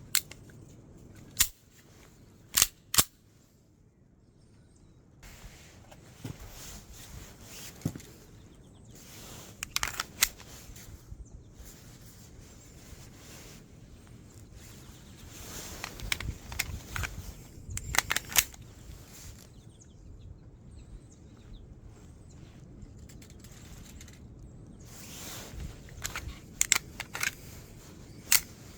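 Beretta pistol being handled: sharp mechanical clicks and snaps of its parts, in small clusters at irregular intervals, with quieter rustling in between.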